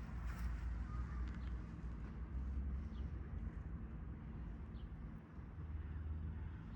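Outdoor garden ambience: a steady low rumble, with a few faint short chirps from small birds.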